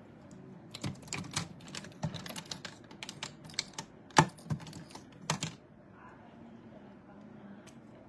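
A quick, irregular run of light clicks and taps that starts about a second in, with one sharper tap near the middle, and stops a little after five seconds.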